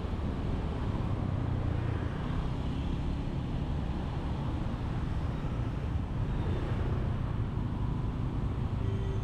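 Steady road and traffic noise, mostly low in pitch, heard from a vehicle travelling along a road.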